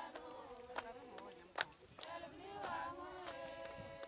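Faint chant-like singing by a group of voices holding long notes, with a few sharp clicks now and then.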